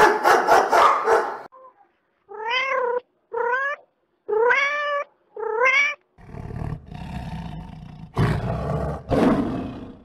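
A dog barks several times in quick succession, then a domestic cat meows four times. From about six seconds in, a lion gives a deep, rumbling growl that swells into a roar near the end.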